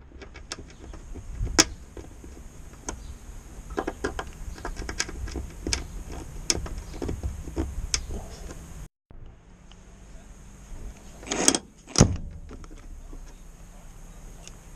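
Hand screwdriver turning a screw in a wooden window sash fitting: a run of small irregular clicks and creaks as the screw is worked. After a short break, two louder scraping knocks close together.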